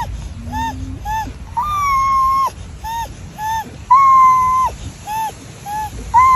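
A pitched, whistle-like melody near one note: a long held tone followed by two short notes, repeating about every two seconds, most likely the video's background music.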